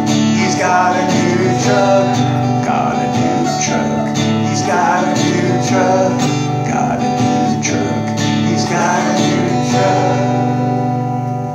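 Acoustic guitar strummed in a steady rhythm, playing the closing bars of a song.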